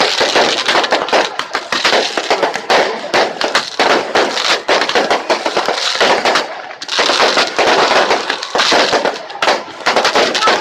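Fireworks going off in a dense, continuous crackle of rapid pops and bangs, easing briefly about two-thirds of the way through before picking up again.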